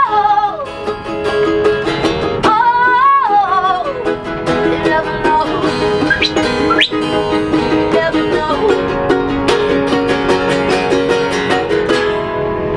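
Ukulele and acoustic guitar strummed together, with a singer's long held notes and wide vibrato in the first few seconds. The strumming stops near the end as the song finishes.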